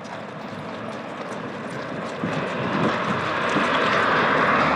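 Horse's hooves clip-clopping on a dirt track, with a motor vehicle passing on the road beside it that grows louder from about two seconds in.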